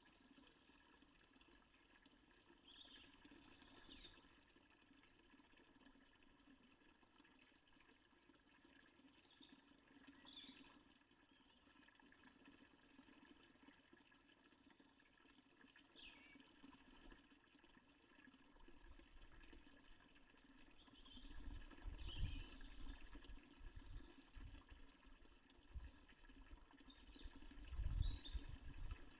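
Faint fountain water running steadily under scattered short bird chirps and whistles. A few low rumbles come in the last third, the loudest near the end.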